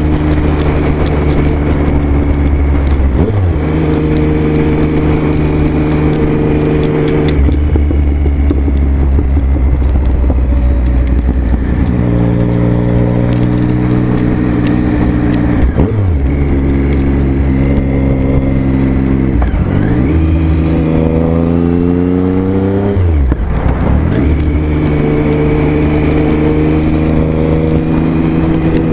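Motorcycle engine running at highway speed under wind rush. Its pitch dips sharply and picks up again several times, and rises steadily for a few seconds before a last dip about two-thirds of the way through.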